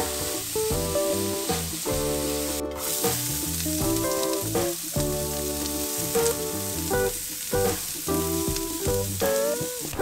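Sliced mushrooms and then diced onion sizzling as they fry in oil in a nonstick frying pan, stirred with a silicone spatula. The sizzle breaks off briefly about a quarter of the way in. Background music with sustained chords plays along.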